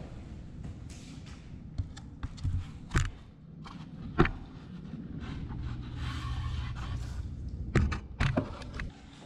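Laminate floor planks being laid by hand: boards scraping as they slide over plastic underlayment, with sharp knocks as plank edges strike and seat against each other. There are single knocks about three and four seconds in, a longer scrape after them, and two louder knocks near the end.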